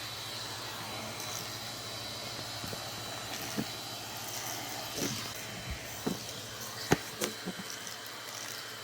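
Vacuum cleaner running steadily, with scattered knocks and clatter; one sharp knock about seven seconds in.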